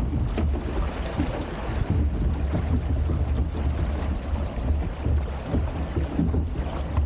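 Log flume boat riding through the water channel: a steady rush of water under heavy wind rumble on the microphone.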